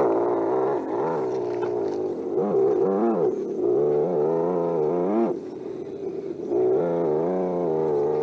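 Simulated engine sound from a 1:10 scale RC crawler's sound module, revving up and down in pitch with the throttle. It drops away for about a second around five seconds in, then comes back.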